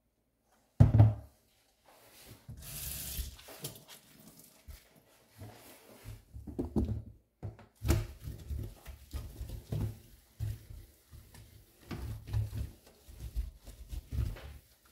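Damp cleaning cloth wiping a stainless steel sink drainboard in repeated back-and-forth strokes, each stroke a low rubbing rumble. A loud thump about a second in and a short hiss around three seconds in come before the wiping settles in.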